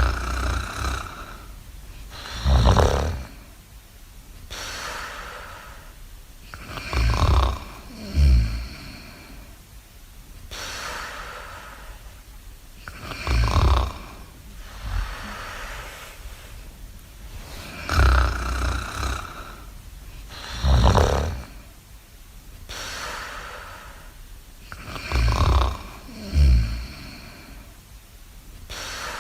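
Snoring in a repeating cycle: a loud, low snore every few seconds, sometimes two close together, with softer breathy stretches between them.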